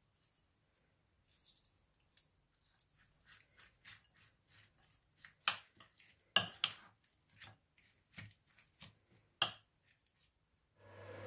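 A metal spoon tossing a wet cucumber and onion salad in a bowl: a run of soft squelching scrapes broken by sharp clinks of the spoon against the bowl, the loudest about six and a half and nine and a half seconds in.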